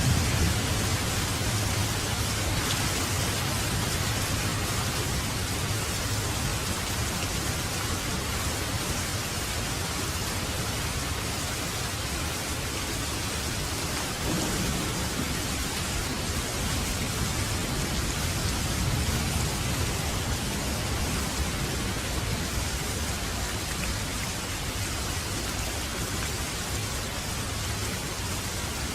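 Steady rain, with low thunder rumbling that fades just after the start and swells faintly again around the middle.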